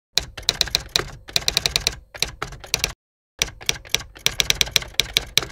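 Typing sound effect: rapid key clicks in two runs, with a short pause about three seconds in, cutting off suddenly at the end.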